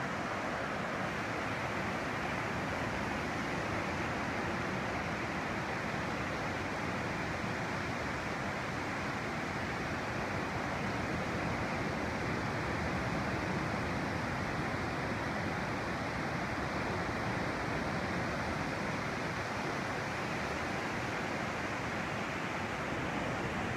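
Ocean surf breaking and washing up the beach, a steady rushing noise without a break.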